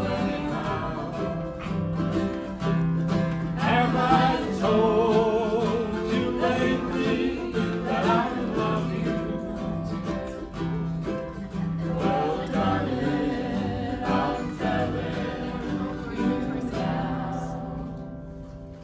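Slow acoustic country song: steel-string acoustic guitar strummed and mandolin played under several voices singing in harmony. Near the end the singing stops and the last chord rings out and fades.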